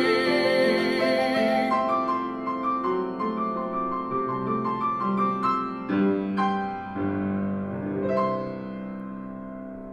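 A male classical singer holds his final note with vibrato over grand piano, stopping just under two seconds in. The piano then plays a closing passage alone, single notes and chords, ending on a last chord about eight seconds in that dies away.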